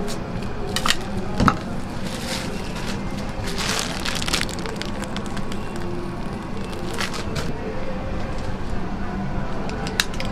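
Utensils clicking and scraping on a plastic cutting board as a crepe is filled with spread, whipped cream and a scoop of ice cream. There are a few sharp clicks about a second in and one near the end, over steady background noise and music.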